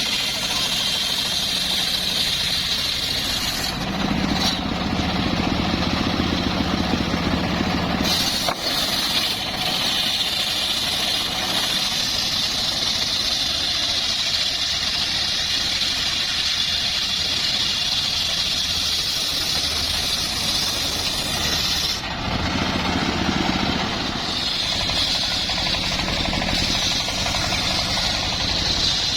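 Engine-driven wood saw running steadily with a strong high whine, the sound growing heavier for a few seconds twice: about four seconds in and again about twenty-two seconds in.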